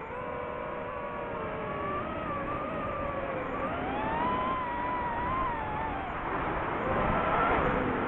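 DJI FPV drone's motors and propellers whining, the pitch rising and falling with throttle changes, over a rush of air that grows louder near the end.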